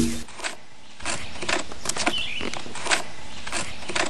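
A sharp knock at the very start, then, from about a second in, irregular scratching and crackling as dry, decayed wood is scraped and picked out of an old pine log.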